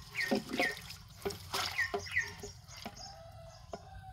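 Water sloshing, splashing and dripping as a hand pushes cut branches down into a clay water jar. The splashing is irregular and dies down after about two and a half seconds, leaving a few drips.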